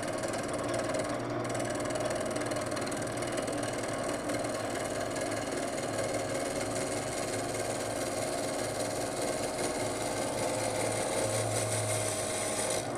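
Wood lathe running steadily while a cutting bit takes a light cut across a spinning laminated wooden banjo rim blank, turning its rough outer skin down toward bare wood. A steady motor hum, with the cutting noise over it.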